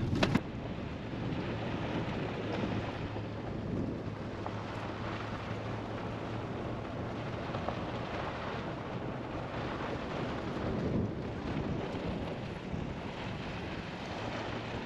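Steady wind and road noise of a vehicle towing a caravan along a gravel road: an even rumble and hiss with no let-up.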